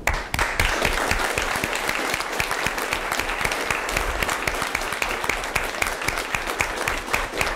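Audience applauding: many people clapping together in a steady round that starts abruptly.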